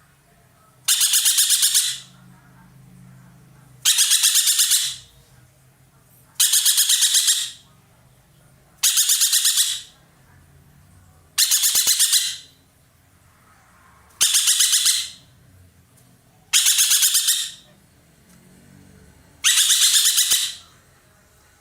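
Ekek keling (racket-tailed treepie) giving loud rattling calls: eight bursts of about a second each, every two and a half seconds or so, each a fast train of clicks.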